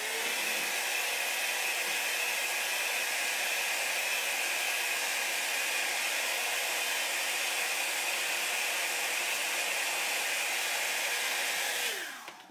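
Small handheld blow dryer running steadily, a loud even blowing with a constant whine in it, drying freshly applied chalk paste. It is switched off near the end, and its whine drops away as it winds down.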